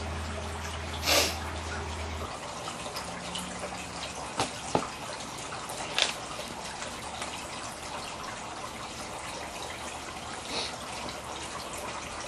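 Running water trickling steadily, with scattered clicks and knocks, the sharpest about a second in. A low hum under it cuts off about two seconds in.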